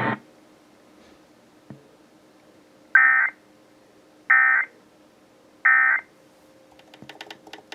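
Emergency Alert System end-of-message data bursts: three short, identical bursts of high digital squawk, about a second and a half apart, signalling that the alert broadcast is over. A few faint clicks follow near the end over a low steady hum.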